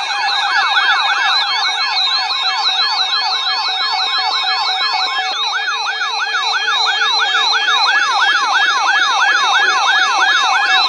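Emergency alert attention signal: a loud electronic tone sweeping rapidly up and down, about three times a second, layered over steady high tones.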